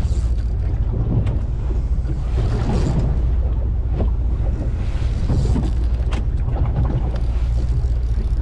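Small fishing boat's engine running steadily at trolling speed, a constant low rumble, with wind buffeting the microphone and water rushing along the hull.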